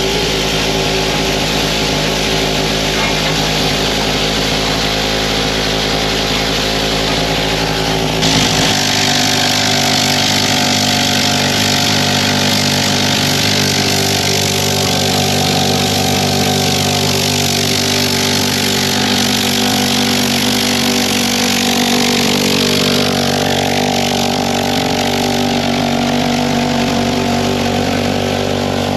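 Steam locomotive's vacuum brake running: a steady mechanical hum with a hiss over it. About eight seconds in, the deepest part of the hum stops and the hiss grows louder.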